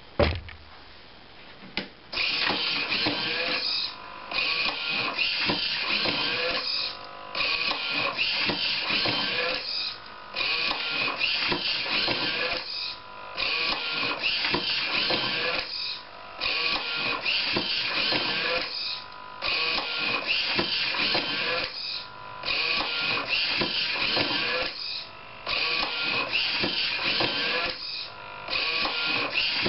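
Homemade automatic book scanner running its page-turning cycle over and over: a mechanical whirring run of two to three seconds, a short pause, then the next, roughly every three seconds. A single thump comes right at the start.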